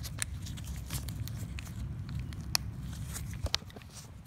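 Nitrile-gloved hands working a part back into a plastic lawnmower carburetor: scattered small sharp clicks and rubbing over a low handling rumble, with the two loudest clicks about two and a half and three and a half seconds in.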